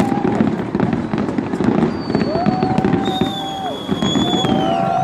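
Fireworks display: a dense, continuous crackle of bangs and pops, with a few long, steady whistles sounding over it, one dropping in pitch near the end.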